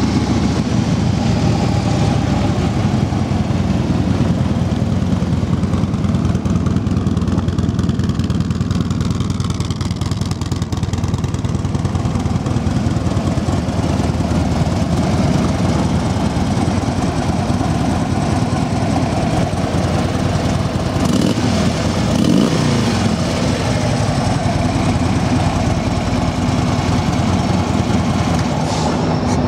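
2015 Harley-Davidson Street Glide Special's fuel-injected 103-cubic-inch V-twin idling steadily after start-up.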